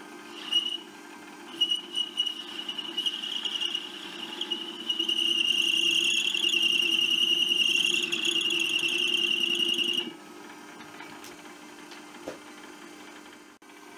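Metal lathe cutting a stainless steel rod with a carbide-insert tool: a high, steady squeal from the cut comes and goes at first, then holds for several seconds, loudest in its second half, and cuts off suddenly, leaving the lathe's steady running hum.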